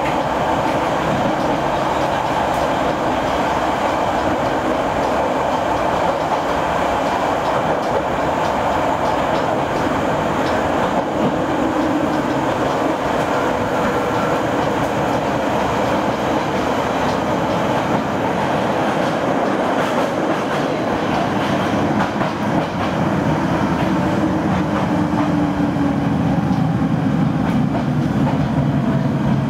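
Running sound of an Izuhakone Railway 5000 series electric train heard inside motor car MoHa 5014: a steady loud rumble of the wheels on the rails, with clicks over rail joints and the hum of the traction motors.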